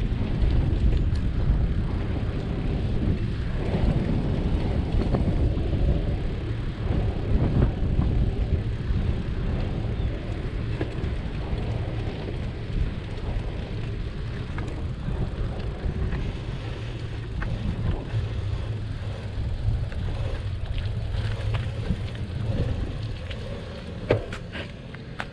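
Wind buffeting the microphone of a camera riding on a moving bicycle, with the tyres rumbling on asphalt. It eases off over the last few seconds as the bike slows, and there is one sharp click near the end.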